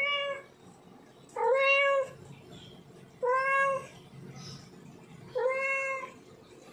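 Male domestic cat in heat calling for a female: three drawn-out meows at a steady pitch, about two seconds apart, after the tail of one more at the very start.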